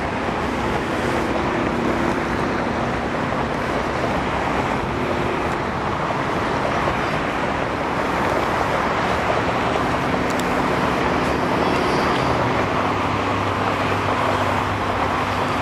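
Jet engines of an Airbus A340-300 airliner running, a steady rushing noise with faint low hums, a deeper hum joining about three-quarters of the way through.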